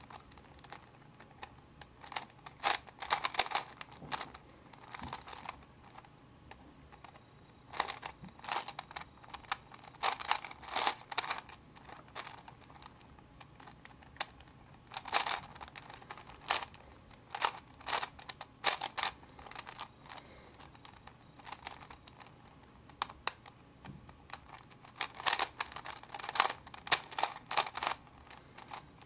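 4x4 Rubik's Cube (Rubik's Revenge) being turned by hand: quick runs of plastic clicks and clacks as its layers are twisted, coming in bursts of a second or two with short pauses between them.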